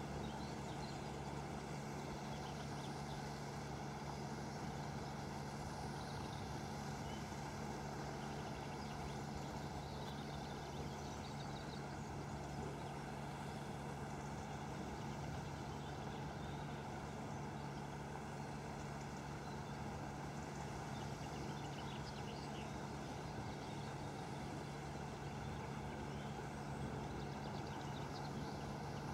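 Lake aeration unit running: a steady mechanical hum at constant pitch that does not change throughout.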